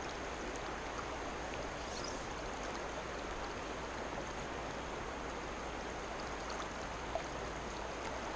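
Steady rush of creek water running, with one faint click about seven seconds in.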